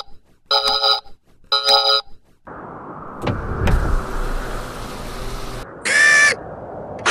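Robot sound effects: three short electronic beeps about a second apart, then a click with a low boom and a steady mechanical whir like servo motors as the robot's claw arms move, and another beep near the end.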